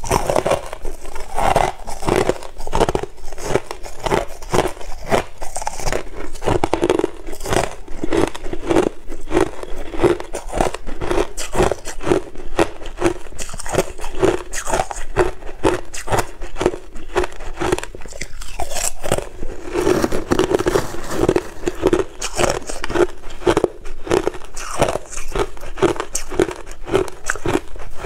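Crushed ice being bitten and chewed: a rapid, unbroken run of crisp crunches and cracks, several a second.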